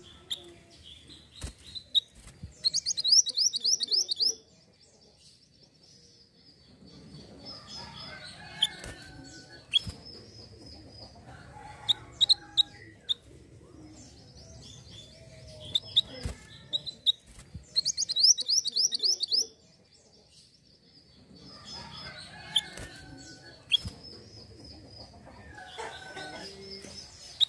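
Minivet (mantenan gunung) calling: scattered short, high chirps, and twice a loud, fast series of rapid repeated whistled notes.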